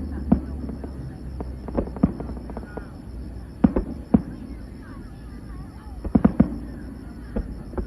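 Aerial fireworks bursting with irregular booms, some in quick pairs about four and six seconds in, over faint crowd chatter and a low steady hum.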